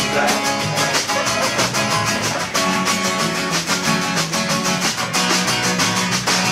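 Acoustic band playing an upbeat tune: quick, even strumming on acoustic guitars over upright bass notes.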